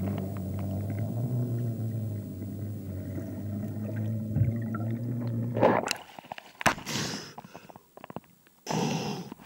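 Steady low underwater rumble as the freediver rises along the line, cut off about six seconds in when he breaks the surface; then a splash and short, sharp breaths, the recovery breathing after a deep breath-hold dive.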